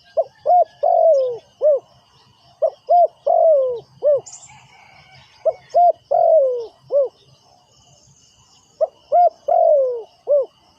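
Spotted dove cooing its territorial call: four repeated phrases about three seconds apart, each with two short notes, a long falling note and a short closing note. It is a decoy bird's call used to lure wild doves. Faint high chirping of insects or small birds runs underneath.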